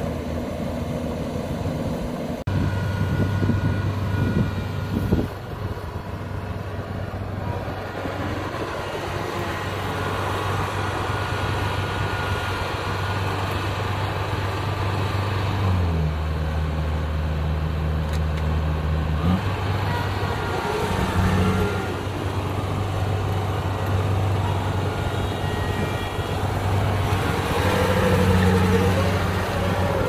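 Kubota DC-60 combine harvester's diesel engine running steadily as the machine works. The note drops lower for a few seconds around the middle.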